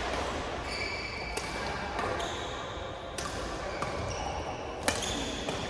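Badminton rally: sharp racket hits on the shuttlecock a second or two apart, with shoes squeaking on the court floor in a large hall.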